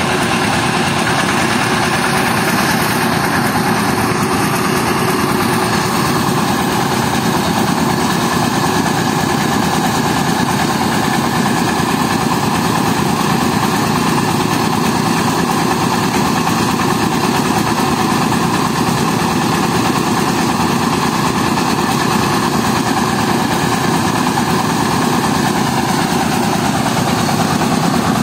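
Engine-driven mobile rice mill running steadily while milling rice: a loud, continuous mechanical drone that holds an even level throughout.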